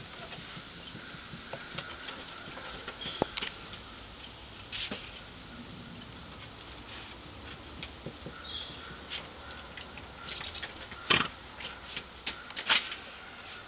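Tufted titmouse moving about a platform feeder: several sharp taps and wing flutters, the loudest a little after ten seconds in and again near the end, over a steady high insect trill.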